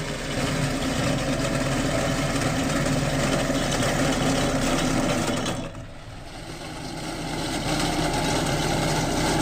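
Heavy machine's engine running steadily. It drops away briefly about six seconds in, then comes back at the same level.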